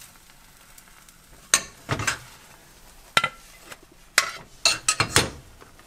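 A silicone spatula scraping a small frying pan, and the pan clinking against a ceramic plate as an omelet is turned out onto it. A handful of separate knocks and scrapes begin about a second and a half in, and they come closest together near the end.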